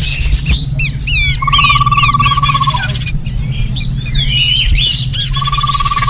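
Bird-lure recording of several small forest birds calling together: rapid high twittering and swooping chirps, with a steady trill about a second and a half long twice, over a low steady hum. The pattern repeats every few seconds, as a looped lure call meant to draw in small birds such as babblers.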